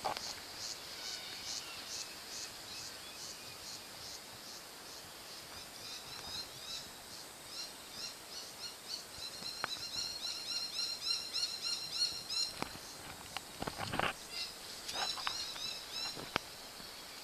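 A chorus of high-pitched chirping calls: evenly repeated chirps at about three a second at first, then from about six seconds in many overlapping rising-and-falling chirps from several callers. A few knocks and rustles come near the end.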